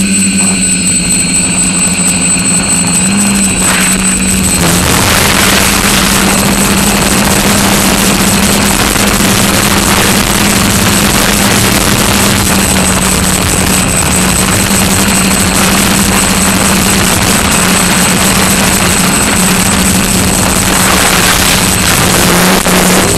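Quadcopter's electric motors and propellers humming steadily at one pitch, heard from the camera on board, with a thick rush of air over the microphone that swells about five seconds in and eases near the end.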